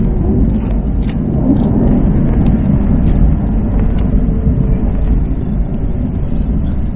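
Loud, steady low rumble of an Airbus A321 heard inside the passenger cabin near landing: engine and airframe noise with no clear pitch.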